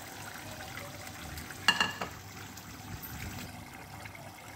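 Steady hiss of an aluminium pot of water heating on a gas burner. A single sharp metallic clink rings briefly about a second and a half in, with a fainter one just after.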